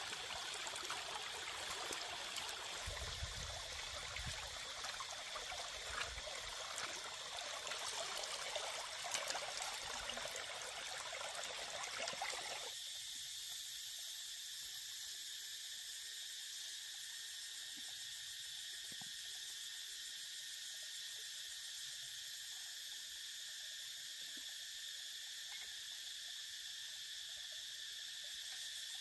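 Water running and splashing over a basket of vegetables being rinsed. About 13 seconds in it stops abruptly, leaving a steady, high-pitched drone of forest insects.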